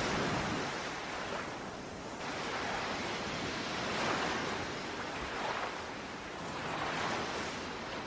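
Sea waves breaking and washing in, surging and receding every couple of seconds.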